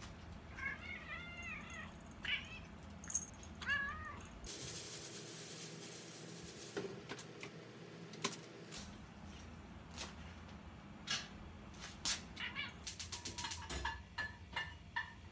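House cat meowing: a quick run of four short rising-and-falling meows near the start, strung together like a rooster's "cock-a-doodle-doo", then two single meows about two and four seconds in. A few seconds of steady hiss follow, with scattered clicks near the end.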